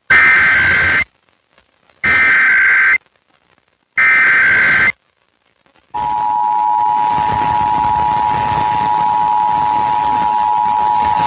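Emergency Alert System alert over broadcast radio: three bursts of the SAME data header, each about a second of rapid two-tone warbling, two seconds apart. About six seconds in, the EAS two-tone attention signal starts and holds steady, over radio hiss. Together they open a Required Monthly Test.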